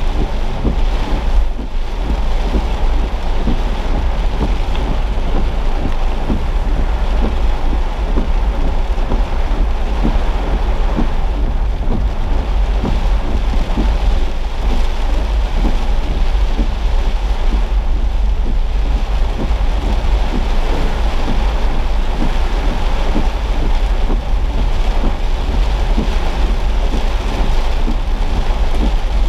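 Heavy rain pelting a moving car, heard from inside the cabin as a dense steady patter over a constant deep rumble.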